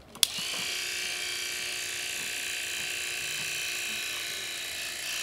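Electric grooming clippers switched on with a sharp click, then running with a steady high-pitched whine.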